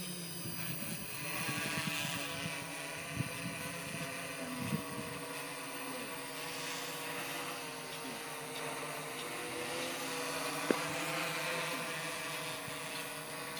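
Multirotor drone's electric motors and propellers droning steadily while it hovers overhead, several steady tones that waver slightly in pitch as the motors adjust to hold position. A single sharp click about three-quarters of the way through.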